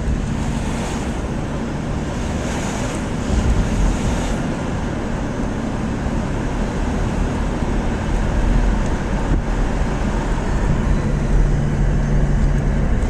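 An engine running steadily with a low hum, under wind buffeting the microphone, with gusts about a second in and again between two and four seconds in.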